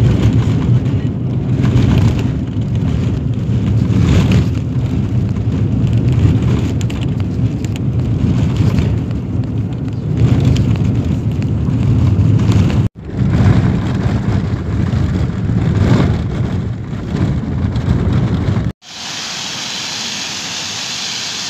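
Road and engine noise of a moving car heard from inside, a heavy steady low rumble with uneven swells. Near the end it cuts off abruptly and gives way to the even hiss of fountain jets splashing.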